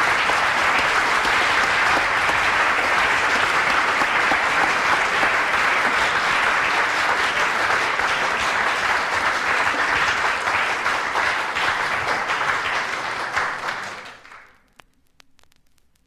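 Audience applauding steadily, heard off a worn vinyl record. The applause fades out sharply near the end, leaving faint record surface crackle and clicks.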